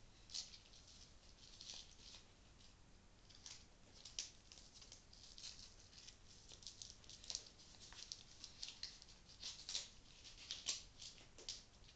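Faint, irregular crackling and rustling of Velcro straps being pressed down and adjusted around a forearm.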